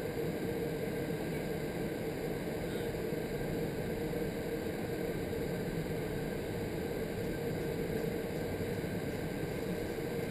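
Vertical wind tunnel running: a steady, even rush of air with a constant hum underneath.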